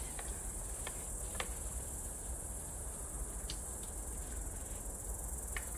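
A steady high-pitched chorus of insects chirring in the grass, with a few faint clicks of a metal spoon against a steel pot.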